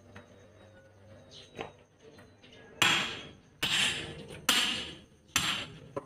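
Four hard hammer blows on a steel tire tool, about one a second, each with a short metallic ring, driving the tool in to work the bead of a ten-wheeler truck tire off its rim by hand. A few lighter knocks come before them.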